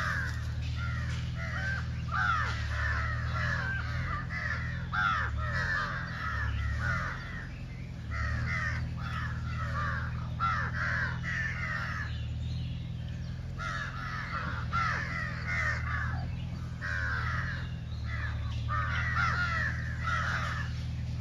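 A flock of crows cawing continuously, many calls overlapping, with short lulls about eight and twelve seconds in. A steady low hum runs underneath.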